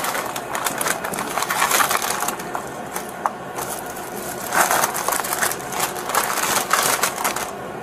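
Plastic snack and candy bags crinkling as they are handled and set down on a store counter, an irregular rustle with a few sharp knocks.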